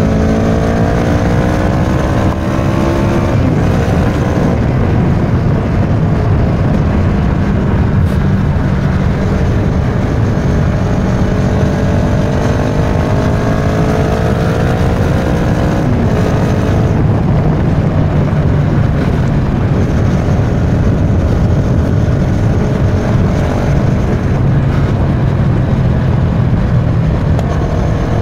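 Kawasaki Versys 650's parallel-twin engine running through a Giannelli aftermarket exhaust on the move. The note rises under acceleration and falls back twice, once about three seconds in and again about halfway through, over a steady low rumble and wind rush.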